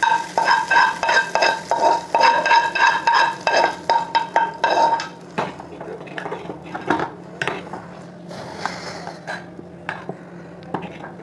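A metal spoon scraping and tapping a small tempering pan as the tadka is emptied into a pot of dal, each stroke ringing, for about five seconds. After that a spoon stirs the dal in a metal pot, with lighter, scattered clinks.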